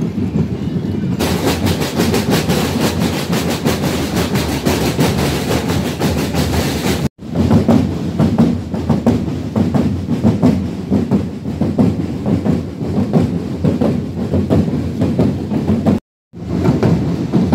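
Street-parade drums and percussion beating a fast, steady rhythm, loud and dense, broken by two abrupt brief dropouts about 7 and 16 seconds in.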